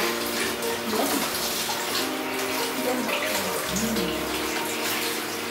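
Steady rush of running water. Soft background instrumental music with held notes plays under it.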